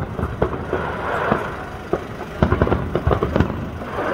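Distant fireworks going off: a string of irregular bangs and pops, several a second at times, over a steady background rumble.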